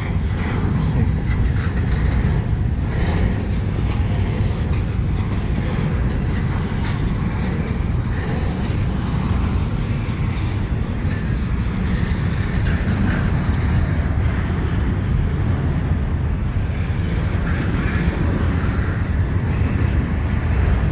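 Double-stack container cars of a freight train rolling past close by: a steady, loud rumble of steel wheels on rail, with occasional faint clanks.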